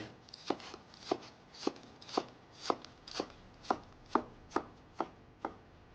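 Kitchen knife chopping parsley on a cutting board: eleven evenly paced strokes, about two a second, stopping shortly before the end.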